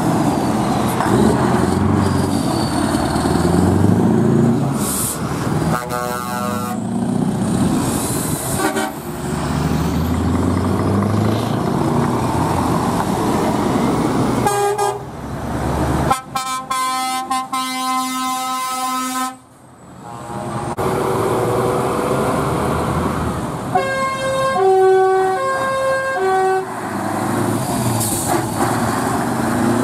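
Heavy trucks with open exhaust pipes pulling away one after another, their diesel engines running loud. Several air-horn blasts sound over them: short toots about six and nine seconds in and again around fifteen seconds, a long horn held for about three seconds around the middle, and a horn sounding alternating notes near the end.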